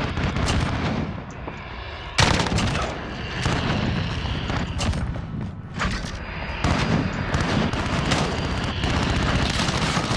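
Gunfire in a first-person shooter game: repeated shots, some in rapid strings, over dense battle noise, with a loud bang about two seconds in.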